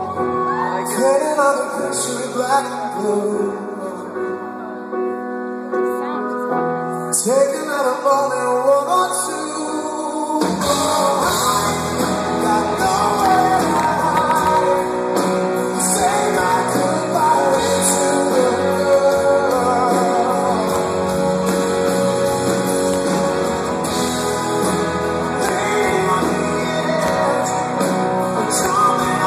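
Rock band playing live in a concert hall, heard from within the audience: guitars and drums in a lighter passage, then the full band with bass comes in hard about ten seconds in and plays on at full volume.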